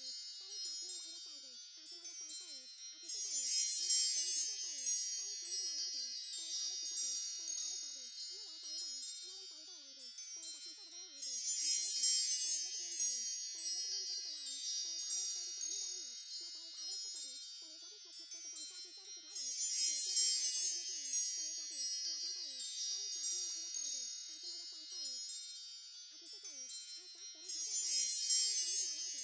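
Wind chimes tinkling continuously, swelling louder about every eight seconds as the track loops.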